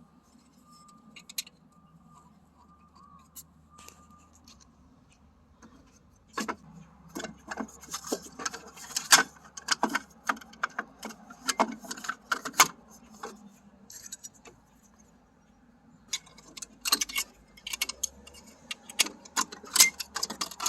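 Small metal parts being handled, clicking and clinking as a replacement start relay is fitted onto a mini fridge's compressor. The clicks come in two irregular runs, one starting about six seconds in and another about sixteen seconds in.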